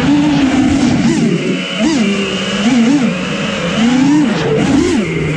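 FPV quadcopter's brushless motors and 4.9-inch props whining in flight, the pitch rising and falling again and again as the throttle is worked.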